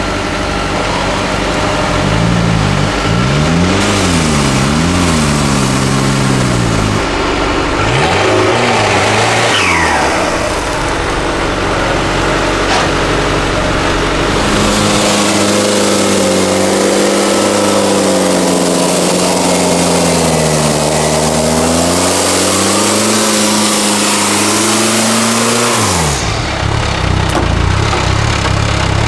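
Off-road 4x4's engine revving hard, its pitch rising and falling several times, then held at high revs for about ten seconds with a wavering pitch before dropping off near the end. A loud rushing noise, typical of wheels churning through mud and water, runs with the high-rev stretch.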